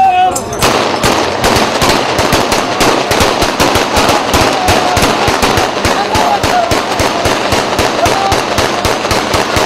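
Celebratory gunfire: rifles fired into the air in rapid, irregular shots and short bursts, several a second, beginning about half a second in.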